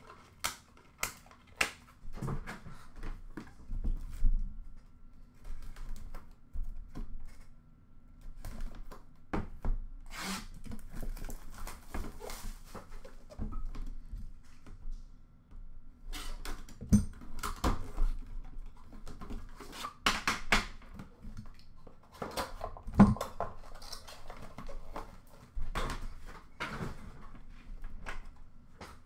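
Hands unpacking a hockey card box and its metal tin: packaging rustles, with scattered clicks and knocks as the box and tin are handled. The loudest knocks come about 17 and 23 seconds in.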